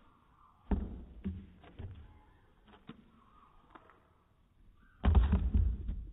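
German shepherd's paws and body thudding on a wooden deck. There are a few sharp knocks in the first three seconds, then a louder bout of thumps about five seconds in as it comes down from a leap and rolls onto its back.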